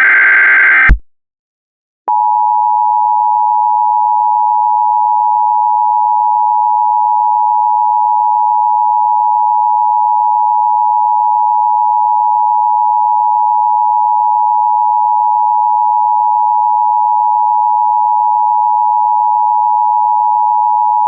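The last burst of an Emergency Alert System SAME header, buzzy digital data tones, ends about a second in; after a second of silence the EAS attention signal starts, a steady, unwavering two-note electronic tone.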